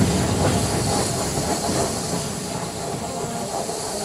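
Steam train sound: a steady hiss of steam over the rumble of a train on the track, a little louder in the first second.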